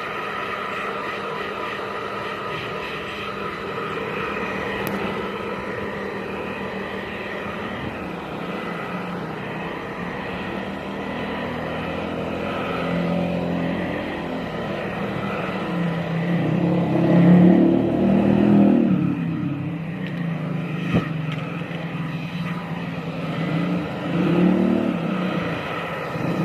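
Handheld hair dryer running steadily, a motor whine over rushing air, while drying a freshly bathed cat. It gets louder for a few seconds about two-thirds of the way through, and again briefly near the end.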